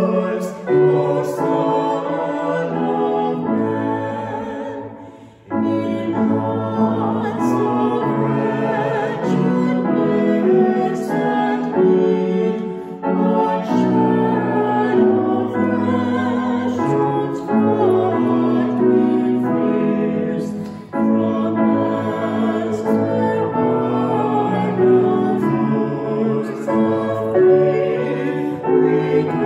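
A woman and a man singing a sacred song together, with vibrato, accompanied by a grand piano. Brief breaks between phrases come about five and twenty-one seconds in.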